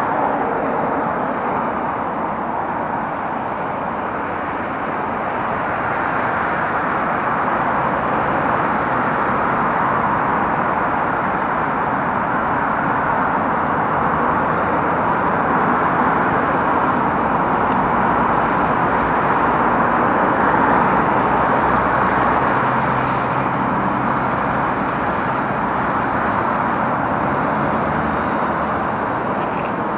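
Steady din of road traffic, swelling and easing slowly, with no distinct events.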